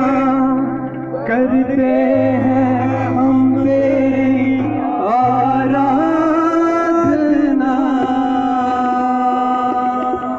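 Live devotional worship song: a man sings into an amplified microphone with long held notes, over a sustained bass accompaniment that shifts pitch twice.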